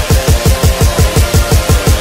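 Electronic intro music with a fast, steady kick-drum beat, about seven hits a second, under a sustained synth tone.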